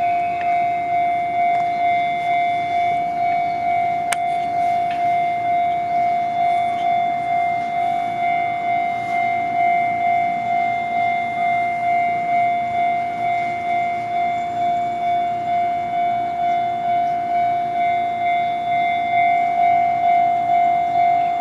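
Japanese level-crossing electronic warning bell ringing: a steady pitched ding repeating in an even rhythm, the signal that the crossing is active for an approaching train.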